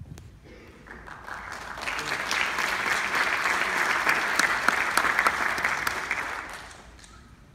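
Audience applauding, building up over the first couple of seconds and dying away about seven seconds in.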